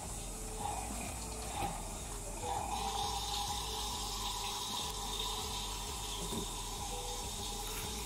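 Little Tikes toy washing machine running its wash cycle, its drum turning the clothes while it plays a steady running-water sound effect. The sound shifts and grows slightly fuller about two and a half seconds in.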